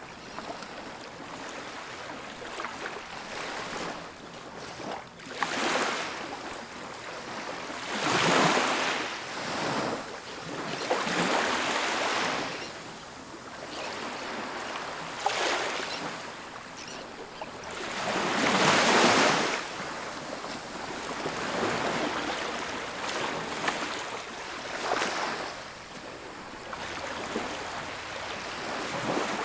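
Ocean waves breaking and washing up a beach, a steady hiss of surf that swells every few seconds, loudest about 8 and 19 seconds in.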